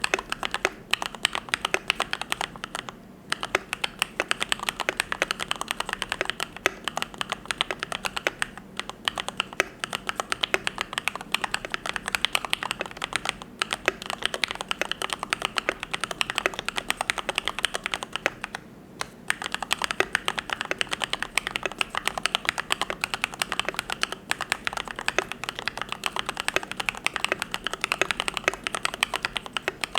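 Continuous fast typing on a YMD75 V3 custom mechanical keyboard fitted with lubed Gateron Yellow linear switches, a dense run of keystroke clacks broken by a few brief pauses.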